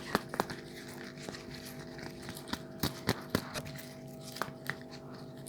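Soft clicks and taps, about nine of them at irregular spacing, the strongest around the middle, over a faint steady hum.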